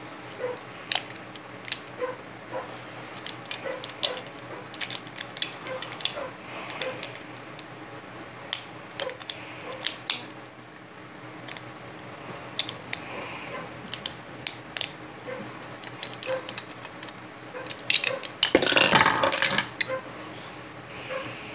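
Plastic Lego bricks clicking and tapping as they are handled and snapped together, in scattered irregular clicks. About 18 to 20 seconds in, a louder rough noise lasts over a second.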